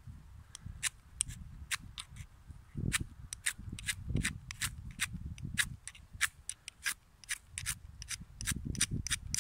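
Metal striker scraped hard and fast down a ferrocerium rod, a quick string of short, sharp scrapes at about three strokes a second, to throw sparks onto tinder.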